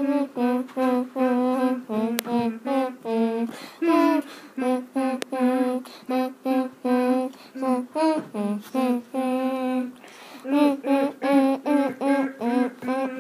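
A single unaccompanied voice humming a carol melody without words, in short separate notes one after another.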